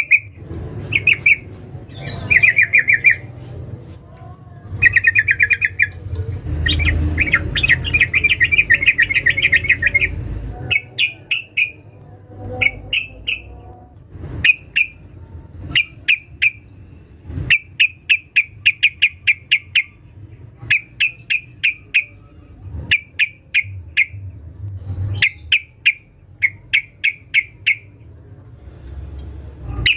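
Yellow-vented bulbul (trucukan) calling in runs of quick, repeated chirps, some bursts short and one dense run lasting a few seconds; this is the female's call to a male.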